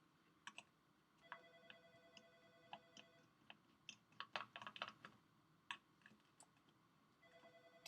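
A telephone ringing faintly in the background, one ring of about two seconds with a second ring starting near the end. Small sharp clicks and taps from hand tools and tiny screws being handled come in between.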